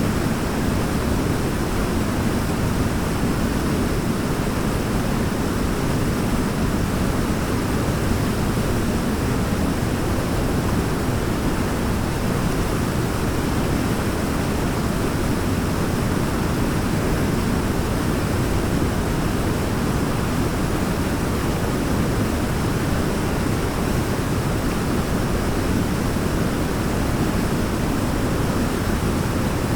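Waterfall: a steady, even rush of falling water, heaviest in the low range.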